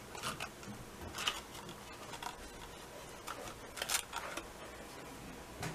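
Cardstock paper box handled by hand, its flaps being folded and pressed into place: faint scattered crackles and soft clicks, the clearest about a second in and near four seconds in.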